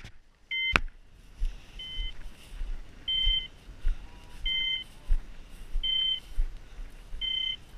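Dog's beeper collar sounding: a short two-tone electronic beep repeating evenly about every second and a half. A sharp click about a second in.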